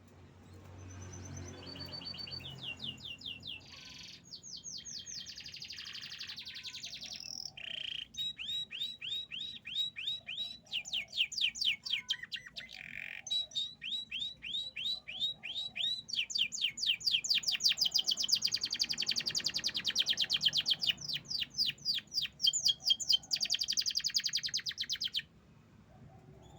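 Domestic canary singing one long song made of fast trills, each a run of rapidly repeated notes, switching to a new kind of note every few seconds. The song builds in loudness and stops suddenly near the end.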